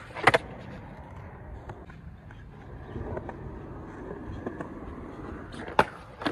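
Skateboard wheels rolling on concrete, with a sharp clack of the board hitting concrete about a third of a second in and another near the end as the board meets the concrete ledge.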